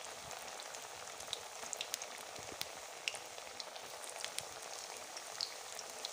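Raw banana pieces coated in besan batter deep-frying in hot oil: a steady sizzle with scattered small crackling pops.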